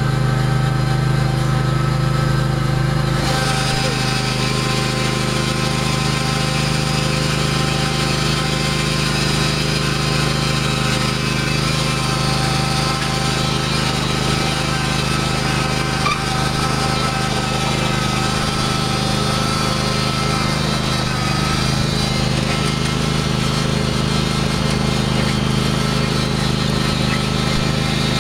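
Husqvarna riding lawn mower's engine running steadily as it drives along, heard from the seat.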